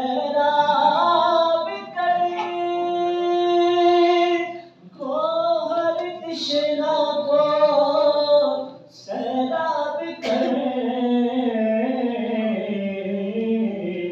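Unaccompanied devotional singing: a voice holds long, drawn-out notes in phrases of a few seconds, broken by short pauses for breath.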